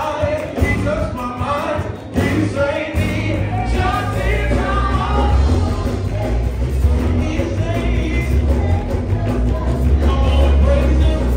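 Church worship music: voices singing over a band with a strong, continuous bass.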